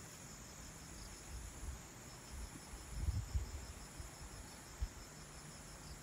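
Insects in the forest shrilling in a steady high-pitched chorus. A pulsing call repeating about five times a second joins it from about halfway. A brief low rumble comes about three seconds in.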